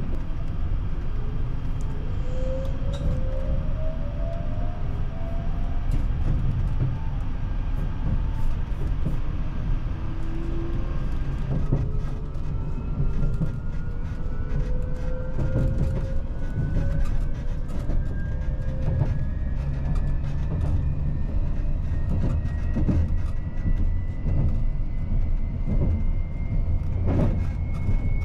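Cabin sound of a JR Shikoku 8600-series electric train under way: a steady low rumble with scattered rail clicks, and the traction motors' whine rising slowly in pitch through several tones as the train gathers speed.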